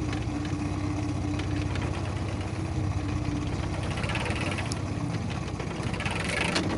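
Boat motor running steadily at trolling speed, a low, even hum. A soft whirring hiss rises over it between about four and six and a half seconds in.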